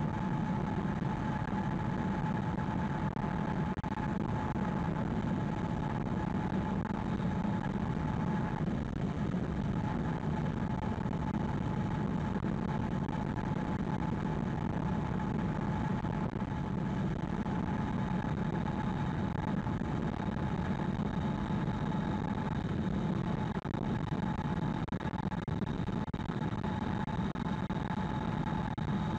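Steady road and tyre noise of a 2020 Hyundai Ioniq Electric cruising at highway speed, heard from inside the cabin, with a thin steady whine running through it.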